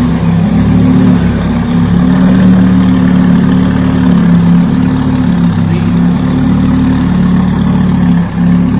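Lamborghini Huracán's V10 idling through a Capristo aftermarket exhaust: a loud, steady, deep drone that wavers a little in pitch, with a brief dip in level about eight seconds in.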